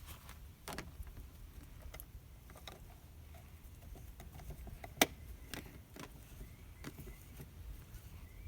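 Plastic hummingbird feeder being handled while nectar is poured into it: scattered light clicks and knocks, with one sharp click about five seconds in, over a low steady rumble.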